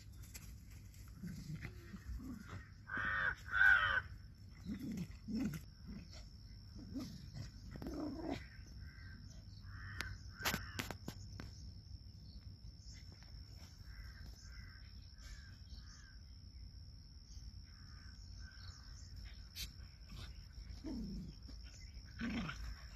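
Animal calls: two loud, harsh calls about three seconds in, then shorter calls scattered through. Low, falling growl-like sounds come at several points, one just before a final loud call near the end, over a steady high insect whine.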